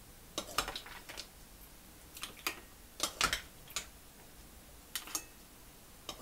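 Cooked mussel shells clicking against one another and against a ceramic bowl as they are served with a wooden spatula: a scatter of irregular light clicks, loudest about three seconds in.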